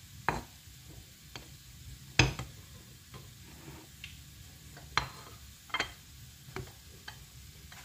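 Garlic cloves, shallots and candlenuts set down one by one into a stone mortar, giving a string of sharp, irregular clicks and taps, the loudest a little over two seconds in.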